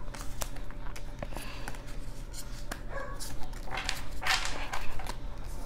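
Pokémon trading cards being handled and flicked one by one off a held stack: a run of soft clicks and card slides, with a longer rustle of the deck about four seconds in.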